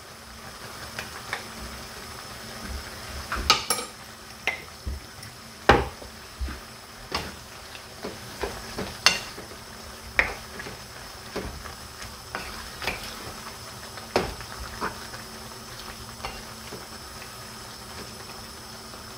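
Wooden spoon stirring a thick, creamy chicken and vegetable stew in a non-stick frying pan, with irregular knocks of the spoon against the pan over a steady faint hiss.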